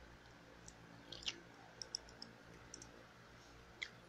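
Faint eating sounds of someone chewing a mouthful of noodles: a handful of short, scattered clicks over a quiet room.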